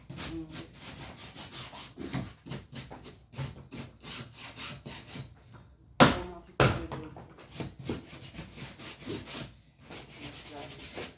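Flat dust mop with a microfiber pad pushed back and forth over a tiled floor, a repeated rubbing in short strokes. Two sharp knocks come about six seconds in.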